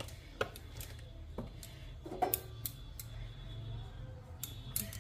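A nonstick tawa being tilted on a gas stove to spread oil, giving a few light knocks and clicks against the burner grate over a low steady hum.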